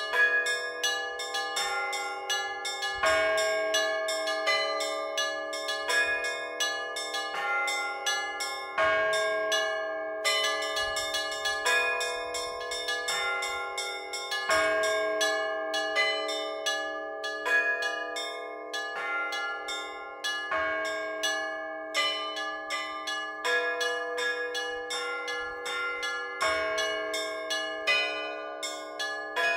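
Orthodox church bells rung by hand in a full peal: quick, repeated strokes on the small bells over the middle bells, with a heavier low bell struck about every six seconds.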